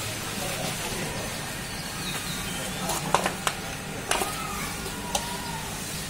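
Steady motor hum from the belt-and-gear boring rig, with a few sharp knocks about three to five seconds in.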